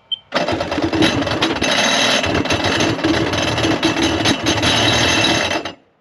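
Electric starter cranking a 2001 Sea-Doo XP's 951 two-stroke twin for about five seconds without it firing; the cranking starts suddenly and cuts off abruptly near the end. The engine turns over by itself with only the DESS key on and the start switch untouched, a fault the owner puts down to a fried MPEM computer.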